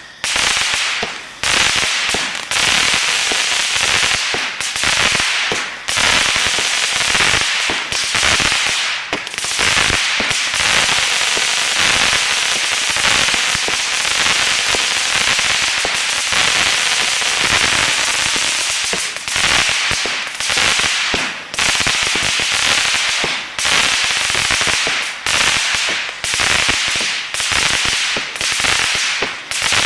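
A 96-shot consumer firework cake firing: a rapid, unbroken volley of tube shots with crackling stars bursting overhead.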